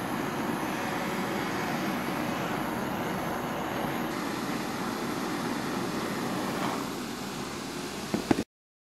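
Small handheld gas blowtorch burning with a steady hiss as its flame heats a hardened steel bar to draw temper colours. A couple of knocks near the end, then the sound cuts off suddenly.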